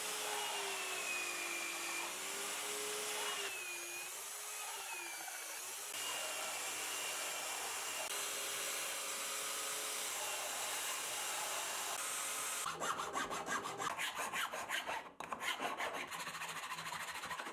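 Small electric belt sander running while a piece of stacked plywood is pressed to the belt, its motor note dipping and recovering under the load. About twelve seconds in it gives way to quick rasping strokes of a round file on plywood.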